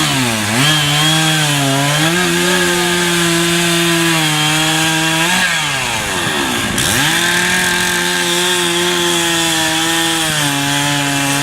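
Chainsaw running at high revs while cutting wood in a timed speed carving, its pitch dropping briefly just after the start and again about six seconds in before revving back up.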